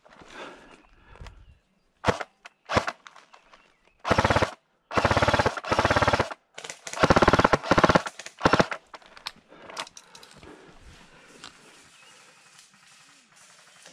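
Airsoft electric gun firing on full auto. There are short bursts about two seconds in, then three long rapid bursts, and one last short burst, until the magazine runs out of BBs.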